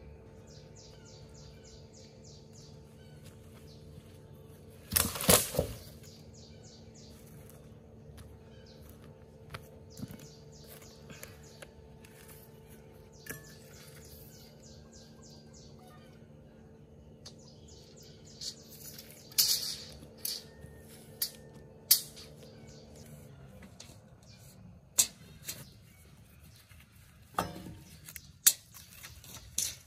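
A long wooden pole dropped onto the forest floor with a heavy thud about five seconds in, the loudest sound here. Around it a bird chirps in quick repeated trills, and near the end come scattered knocks and clicks of tools being handled on a log.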